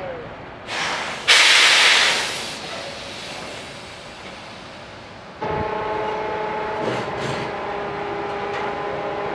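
A loud hiss of released air, like a truck's air brakes, about a second in, fading over about a second. From about five and a half seconds, a steady chord of several held tones.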